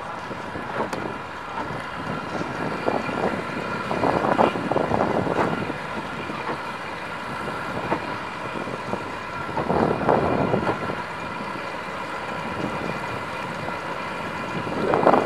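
Triple Yamaha F425 V8 four-stroke outboards running at idle speed, pushing the boat slowly: a steady hum with a high whine. A few short gusts of rushing noise come about four seconds in, about ten seconds in and near the end.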